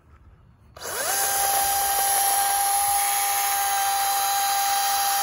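Electric chainsaw spinning up about a second in, then running at one steady, high whine as it undercuts a tree branch.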